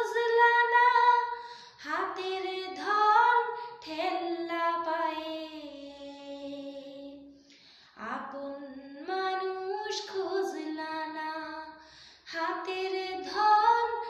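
A woman singing a Bengali song unaccompanied, in long held, wavering phrases, with short breaks for breath about eight and twelve seconds in.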